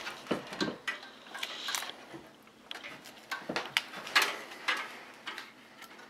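Scattered light clicks, taps and scrapes of an ASUS ROG Strix GTX 1050 Ti graphics card being handled and pushed against a PCIe riser slot while it is lined up for seating, with the loudest knock about four seconds in.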